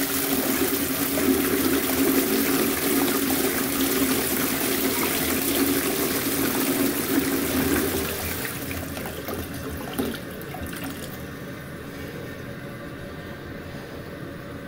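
Toilet flush in full flow: water rushing and swirling through the bowl with a steady hum, dying down about eight seconds in. A brief knock comes about ten seconds in, then fainter water running.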